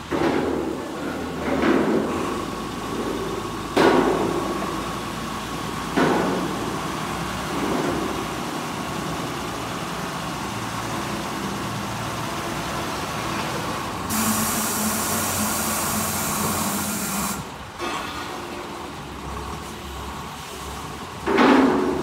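Weichai diesel engine of a DL-360 wheeled rotary drilling rig running as the rig drives, with a series of sharp knocks in the first eight seconds and again near the end. A loud hiss lasts about three seconds midway.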